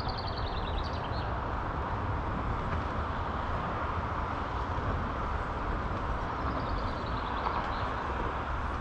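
Steady low rumble of distant city traffic. A small bird sings a quick run of high notes falling in pitch twice: at the start and again about seven seconds in.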